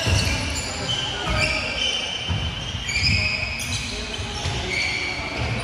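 Sneakers squeaking on a hardwood gym floor: several short, high squeaks one after another, with dull low thuds of players' feet.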